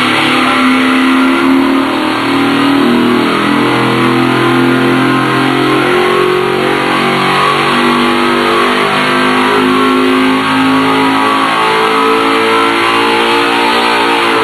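GM Performance Parts CT525 circle-track crate V8, based on the Corvette LS3, running flat out under load on an engine dyno during a power pull. Its note climbs steadily in pitch as it revs from about 4,200 to about 7,000 rpm.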